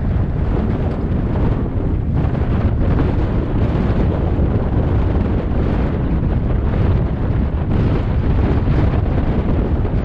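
Heavy wind buffeting the microphone over a steady low rumble, as when travelling fast in the open air.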